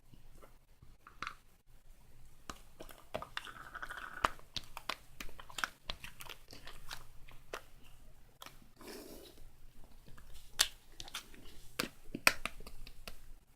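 Close, irregular crunching with sharp crisp clicks, like food being chewed.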